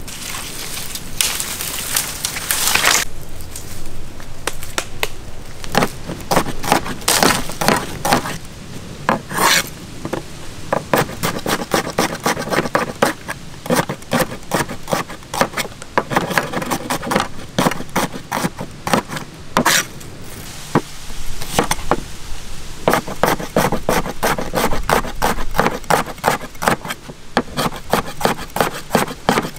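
Cleaver chopping onions on a wooden cutting board: quick runs of sharp knocks in bouts with short pauses. At first, a rustle of leafy branches being pulled.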